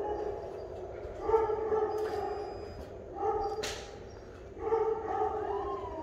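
A dog howling in drawn-out pitched notes, each about a second long, three of them starting a second or two apart.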